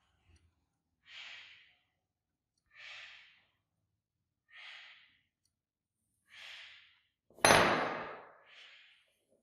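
A person sighing in disappointment: four breathy exhales about two seconds apart, then a much louder sudden noise near the end.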